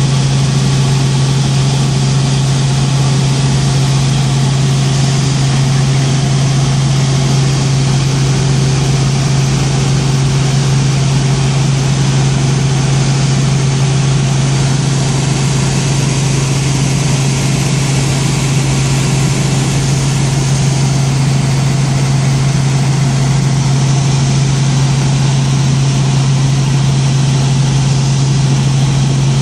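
Robinson R44 helicopter in cruise flight, heard from inside the cabin: the steady drone of its six-cylinder Lycoming piston engine and rotors, with a strong low hum over a wide rushing noise. It stays loud and even throughout.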